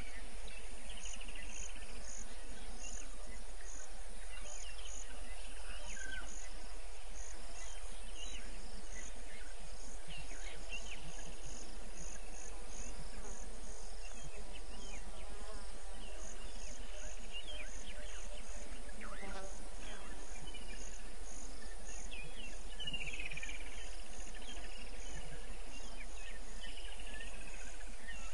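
Evening insect chorus: an insect chirping in a steady high pulse, about three chirps a second, with a few short falling bird calls over a constant low hum.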